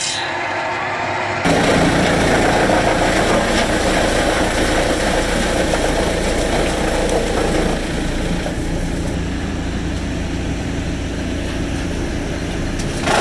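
An engine running steadily, with an abrupt jump in loudness about a second and a half in and a slight drop around eight seconds.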